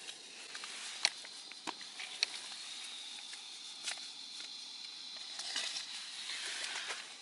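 Small canister gas camping stove burning under a cook pot with a steady hiss, with a few sharp clicks and knocks of handling.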